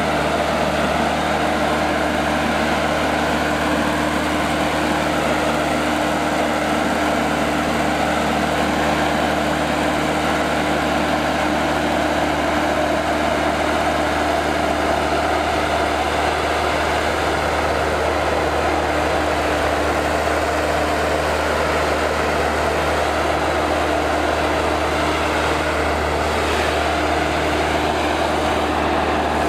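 Engine of a Vimek 404 T3 compact thinning harvester running at a steady, unchanging speed as the machine drives, a constant drone with a held tone.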